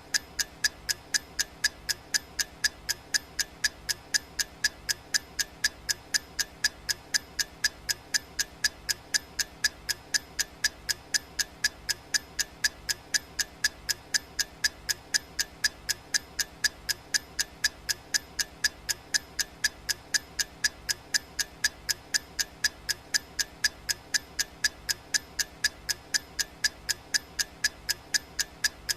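Clock-ticking sound effect of a countdown timer: sharp, even ticks at about two a second.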